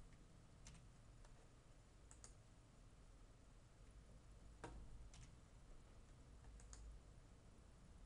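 Near silence with about half a dozen faint, sharp computer mouse clicks spaced a second or more apart. The loudest click comes about halfway through, and a couple come as quick doubles.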